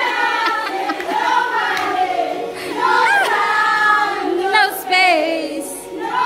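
A group of children singing together, several voices overlapping on held, gliding notes.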